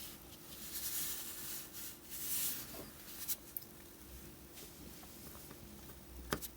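Soft hissy scraping and rustling for a couple of seconds, then a few small sharp clicks, the loudest near the end: the handling sounds of tweezers placing tiny SMD LEDs on a circuit board.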